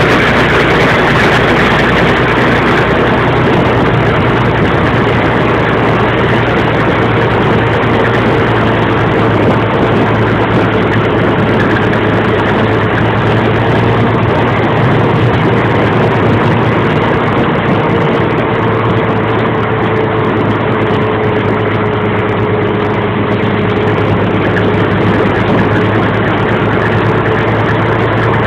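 The engine of a 1927 Ahrens-Fox fire engine running steadily as the truck drives along a road. Under the engine's low hum there is a thick rush of noise, and a faint steady tone that sinks slightly in pitch past the middle.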